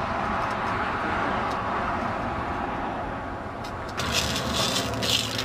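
Radio-frequency current arcing at a grounding clamp on a grounded distribution line, making a steady hiss; about four seconds in, sharp crackling starts.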